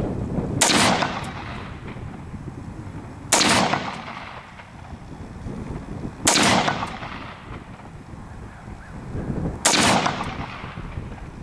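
Smith & Wesson M&P15 Sport II AR-15 rifle in 5.56 NATO fired slowly from a bench. There are four single shots about three seconds apart, each a sharp crack trailing off in a short echo.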